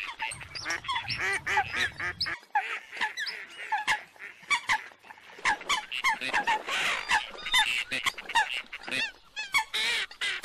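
A mixed flock of waterfowl, ducks and water hens, calling continuously: many short calls that overlap densely throughout.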